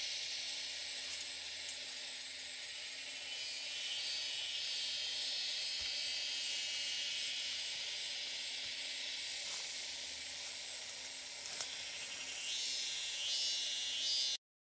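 Steady high-pitched hiss of forest insects, with a couple of faint snaps as feet tread through leaf litter; the sound cuts off abruptly near the end.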